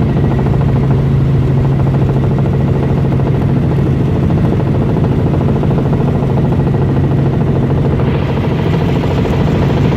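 Helicopter in flight: a steady, loud engine and rotor drone with a strong low hum. About eight seconds in, a brighter hiss joins it.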